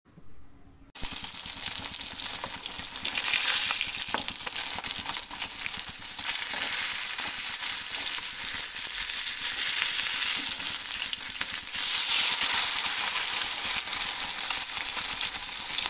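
Fish slices sizzling as they fry in hot oil in a wok, a steady crackling hiss that starts suddenly about a second in.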